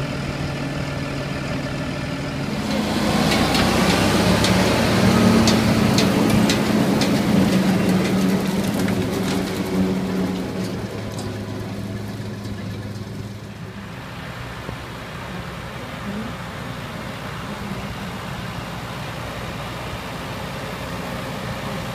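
Fendt tractor's diesel engine idling, then revving up about three seconds in as it pulls a Lely loader wagon away, with sharp clicks and rattles from the machinery. After about ten seconds it settles back to a quieter steady engine sound.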